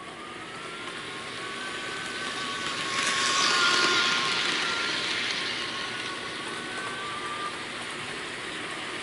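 Bachmann HO scale EMD F9 model diesel locomotive running on its track: a high electric motor whine over a steady running rattle, growing louder as it speeds up, loudest about three to four seconds in, then a little quieter.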